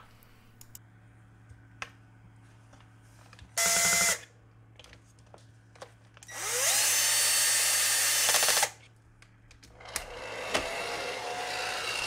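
Cordless drill-driver driving the housing screws back into a hair dryer: a short burst, then a longer run of about two seconds that climbs in pitch as it spins up, with light clicks of handling between. About two seconds before the end, the repaired hair dryer is switched on and runs with a steady hiss and hum.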